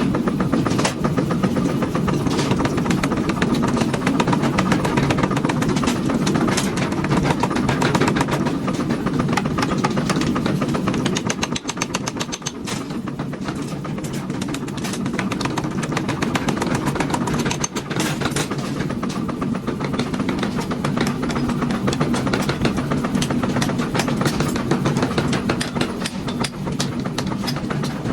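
Machinery running with a steady rumble and many sharp knocks and clatters, dipping briefly in level about twelve seconds in.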